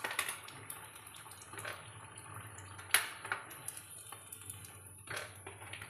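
Samosas frying in hot oil in a kadhai, a steady sizzle, with sharp clinks of a metal spoon against the kadhai and plate as they are lifted out; the loudest clink comes about three seconds in.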